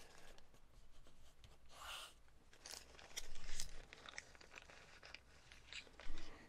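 Pink anti-static plastic bag being peeled open at its sticky tape and crinkled as a small circuit board is slid out. It comes as a few short rustles, the loudest about three seconds in and another near the end.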